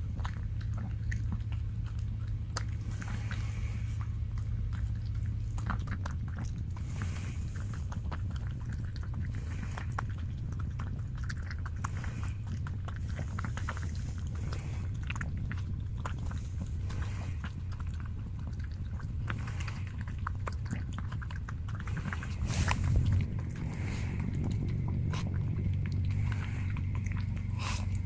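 Toy poodle eating its food, with a steady run of small chewing and biting clicks over a steady low hum.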